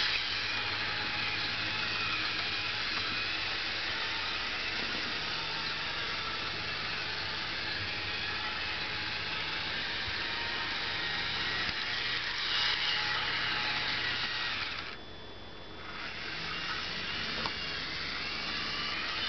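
Bachmann HO scale diesel locomotive's small electric motor and gears whirring steadily as it runs slowly around the track, on a unit that will not go any faster. The whir drops away for about a second near the end, then comes back.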